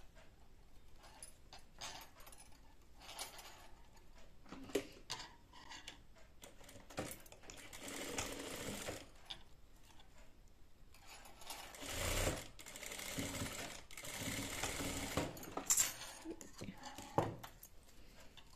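Industrial lockstitch sewing machine stitching in two short runs, about seven seconds in and again from about twelve to fifteen seconds, stitching down a small fabric tassel. Between the runs there are light clicks and rustles of the fabric being handled at the machine.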